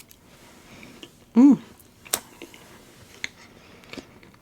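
A person's short hummed 'mmm' about a second and a half in, its pitch rising then falling, with faint mouth clicks and smacks from eating around it.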